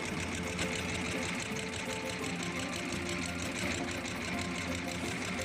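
Small wooden boat's engine running steadily with a fast, even chatter while the boat tows a shrimp trawl net.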